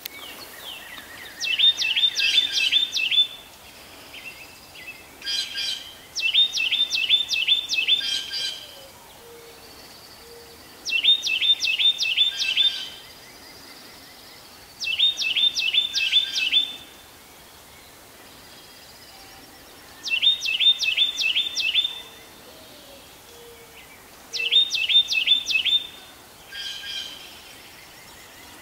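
Carolina wren singing its rolling song of about five quickly repeated phrases, six songs about four to five seconds apart.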